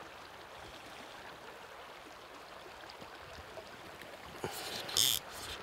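Creek water running steadily over a riffle, a faint, even rush. A short, sharp hiss about five seconds in.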